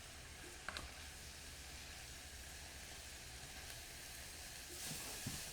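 Oil and spring onions sizzling faintly and steadily in a hot pot, with one light click under a second in.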